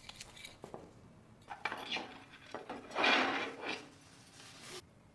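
Rough scraping and rubbing on the small metal body of a rusty diecast toy truck, typical of rust being worked off by hand: a short stretch, then a longer, louder one that stops suddenly near the end, with a few light clicks of handling.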